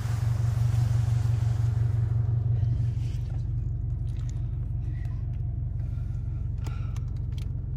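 Car engine and drivetrain running at low speed, a steady low rumble, as the vehicle reverses slowly over a snowy dirt track. A rush of outside air noise fades out about two seconds in, and a few faint clicks come in the second half.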